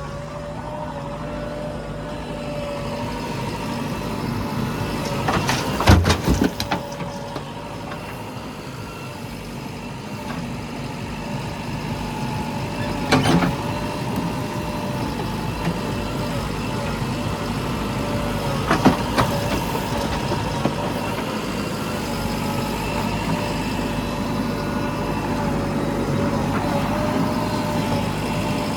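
Diesel engine of a JCB 3DX backhoe loader running steadily, with short bursts of clattering knocks about six, thirteen and nineteen seconds in.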